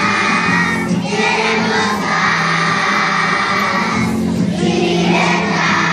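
A large group of young children singing together along with music.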